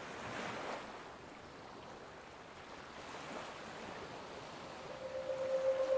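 Campfire burning with a soft, even rushing hiss and a few faint crackles. About five seconds in, a steady pure tone at 528 Hz fades in and grows louder.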